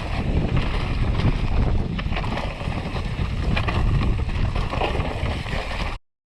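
Wind buffeting the microphone over the rumble and rattle of a mountain bike running down a rough, rocky trail, with scattered knocks from the tyres and bike over rocks. It cuts off suddenly near the end.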